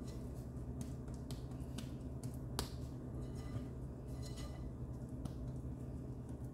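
A silicone spatula patting and smoothing a mound of soft potato dough in a ceramic bowl, making irregular sharp clicks, one louder about two and a half seconds in. A steady low hum runs underneath.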